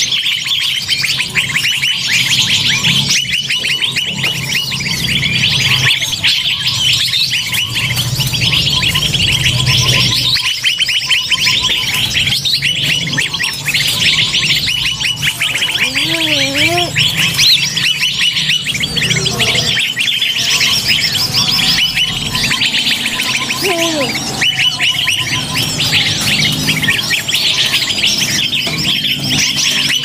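Bird-lure (pikat) recording: a dense, noisy chorus of many small forest birds chirping and trilling at once without a break, over a low steady hum, with a brief wavering whistle about halfway through.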